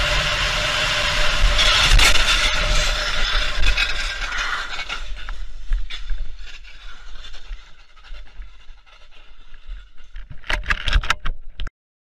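A car crashing at speed: loud road and engine noise, then an impact with scraping about two seconds in that fades away over the next few seconds. A handful of sharp knocks and clatters near the end, then the sound cuts off abruptly.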